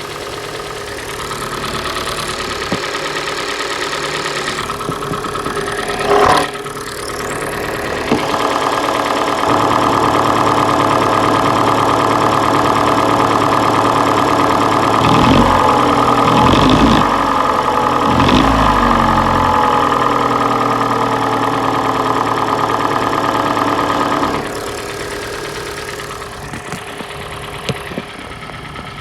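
Hyundai/Kia G4NA 2.0-litre four-cylinder petrol engine running with a piston knock from scuffed, scored pistons and cylinder walls, the sign that the engine needs a rebuild. It gets louder from about eight seconds in, with the pitch sliding up and down in the middle, and drops back to a quieter run about twenty-four seconds in.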